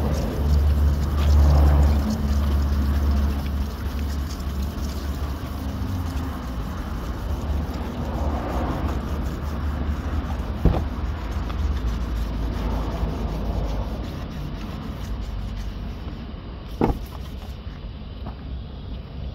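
Hand wet-sanding of a car door's paint with a sanding pad: soft scrubbing in strokes that come and go every few seconds, over a low steady rumble. A short sharp click about halfway and another near the end.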